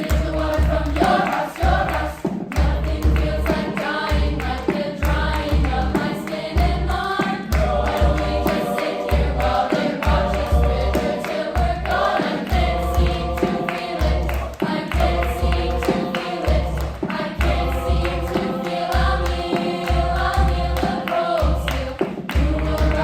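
Varsity choir singing in several parts, with a steady low thump about once a second keeping the beat.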